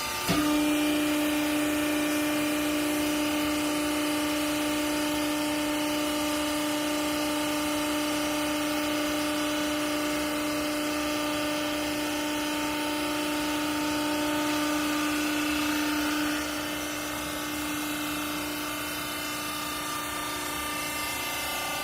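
Hydraulic waste-textile baler running with a steady machine hum. A strong steady drone cuts in with a click just after the start and stops about sixteen seconds in, while the lower hum runs on.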